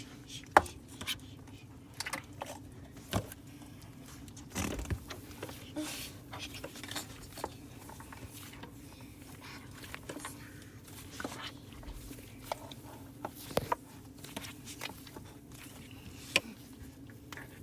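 Slime being squished and worked by hand, making irregular sharp clicks and pops with a few longer squelches, over a steady low hum.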